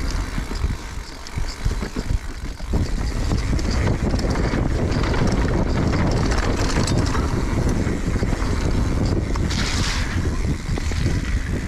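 Wind buffeting the camera microphone on a moving mountain bike, with the tyres rolling over a dirt trail and the bike rattling over bumps. A short hiss about ten seconds in.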